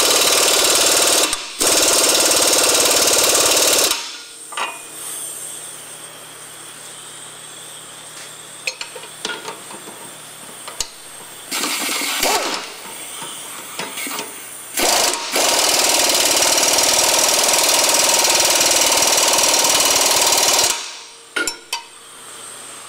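Impact wrench with a 24 mm socket hammering the trailing-arm bolts tight at the differential: a run of about four seconds at the start, a short burst about halfway, and a longer run of about five seconds near the end, with a few clicks of the tool between.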